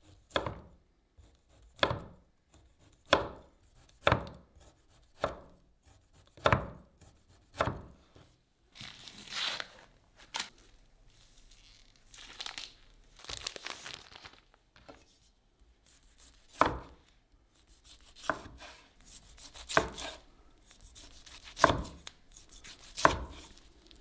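Knife slicing a dry sausage on a plastic cutting board, each cut ending in a knock of the blade on the board, about one a second. Midway there is a stretch of plastic wrapping crinkling, then the slicing goes on.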